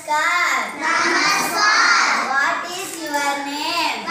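A young girl singing alone without accompaniment, in long, sliding, wavering phrases, with a short breath pause about a second in.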